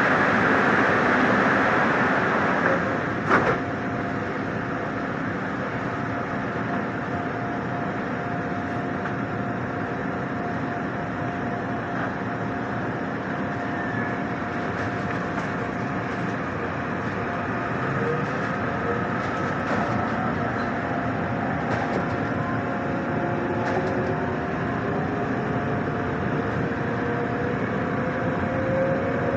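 Korail electric commuter train standing at a platform and then pulling away. A rushing hiss ends in a sharp knock about three seconds in, then a steady hum, and from past halfway a rising electric whine as the train starts to move.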